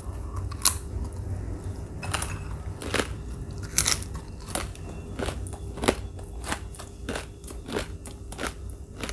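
Close-up chewing of a crisp fried papad snack: sharp, irregular crunches, about one or two a second.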